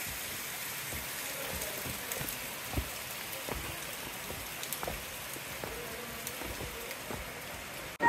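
Steady hiss of rushing, splashing water, with scattered faint taps and clicks.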